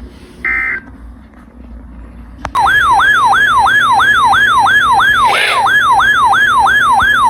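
Electronic siren-style alert tone, part of an emergency alert broadcast. It starts abruptly about two and a half seconds in and rapidly warbles up and down in pitch, about three times a second. A brief electronic beep sounds just before, near the start.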